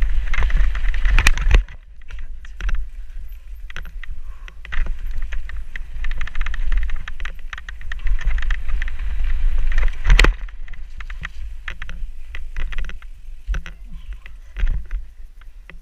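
Mountain bike riding down rough woodland singletrack: tyres running over mud, stones and roots while the bike clatters and rattles over the bumps, with wind rumbling on the microphone. Two hard knocks stand out, about a second in and about ten seconds in.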